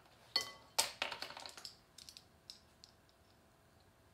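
Light clicks and clinks of a metal measuring spoon and a plastic spice-jar cap being handled over a mixing bowl. There are several quick taps in the first two seconds, the loudest about a second in, one with a short metallic ring, and a few fainter ticks after that.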